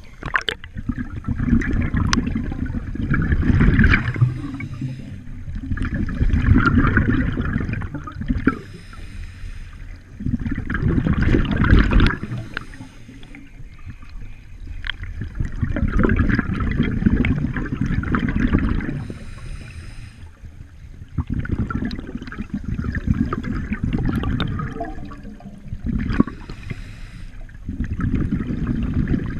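Scuba diver breathing through a regulator underwater: a hiss on each inhale and a rush of rumbling exhaust bubbles on each exhale, about six breaths, each a few seconds long. The sound is muffled by the neoprene hood the camera sits under.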